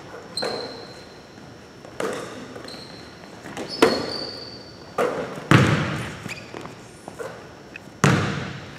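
A basketball bouncing on a hardwood gym floor about six times at irregular intervals, each thud echoing in the large hall. Short high squeaks from sneakers on the floor come in between the bounces.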